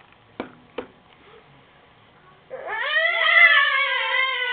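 Two short sharp taps in the first second, then about halfway through a person's high, wavering wail that slides up at the start and is held for about two seconds, like a cat's yowl.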